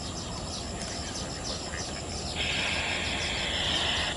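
Outdoor ambience: a rapid, evenly repeated high chirping over a steady low rumble. A louder high buzzing starts abruptly a little past halfway and carries on to the end.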